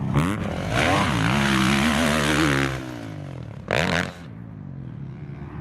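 Motocross dirt bike engine revving up and down as the bike rides the track, loudest for a couple of seconds about a second in and again in a short burst near four seconds.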